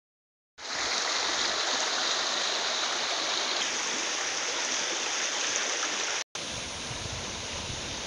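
Shallow creek water flowing over a stony bed: a steady rush of running water. It starts about half a second in and breaks off for a moment about six seconds in.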